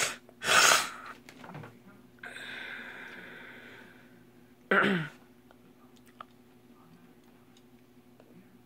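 A man's breath noises close to the microphone: a loud breath, a longer weaker exhale, and a short voiced grunt with falling pitch. Then a faint steady hum with one light click.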